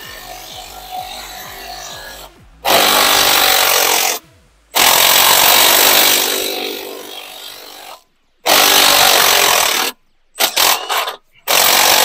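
Power tool run in five bursts of one to three seconds, each starting and stopping abruptly, with short stuttering blips before the last one.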